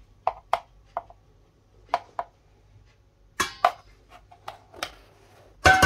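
A spoon tapping and scraping against a plastic container and a stainless steel bowl as turmeric powder is spooned onto raw fish: several light taps, some in quick pairs, then a louder clatter near the end.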